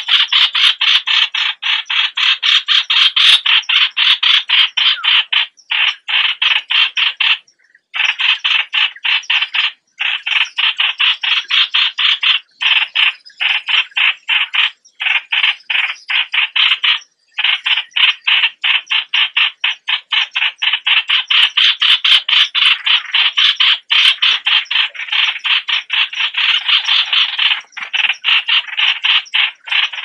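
Yellow-vented bulbul calling in a loud, fast chattering series of short notes, roughly five a second, broken now and then by brief pauses; a call of the kind played as a lure to draw other bulbuls.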